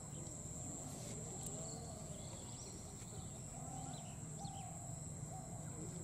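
Outdoor ambience: a steady high-pitched insect drone, with faint scattered bird chirps over a low rumble.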